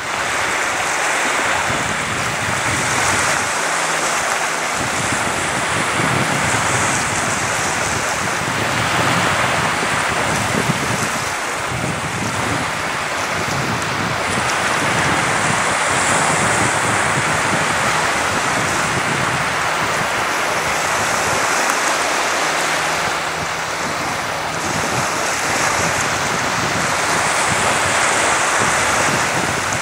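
Small sea waves washing in over sand and around rocks at the shoreline, a steady wash that swells and eases every few seconds, with wind on the microphone.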